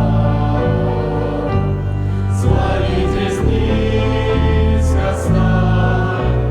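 A choir singing a Christian song over music, in sustained chords that change every second or two.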